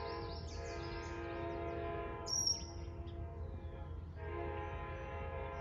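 Long Island Rail Road diesel train's horn sounding a chord in two long blasts: the first lasts about three seconds and the second starts about four seconds in. Under it is a low steady rumble, and birds chirp throughout, with one loud chirp about two seconds in.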